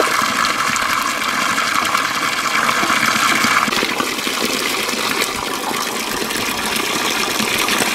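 Water gushing steadily from a pipe spout and splashing onto rocks. The splashing changes in character about four seconds in.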